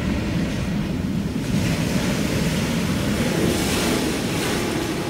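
Ocean surf: a big wave breaking and whitewater rushing, a steady dense wash of water noise.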